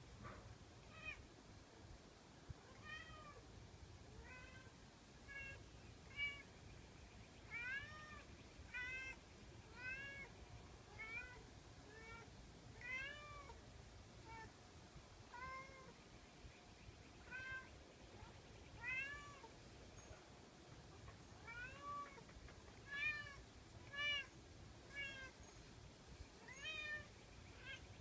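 A domestic cat meowing over and over, about one short rising-and-falling meow a second: begging to be let outside.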